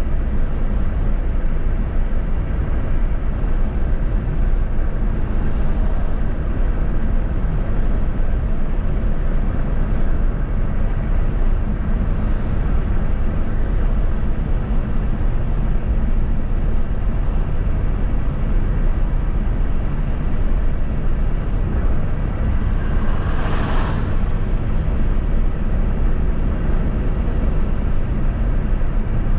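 Steady road and engine noise of a vehicle driving on a highway, with a brief rise of rushing noise about three-quarters of the way through.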